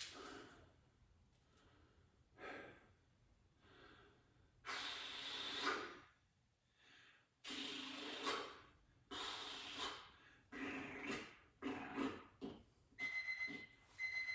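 A man breathing hard from the effort of a set of lat pull-downs: a series of loud, forceful breaths, about one a second through the second half. A thin steady high tone joins near the end.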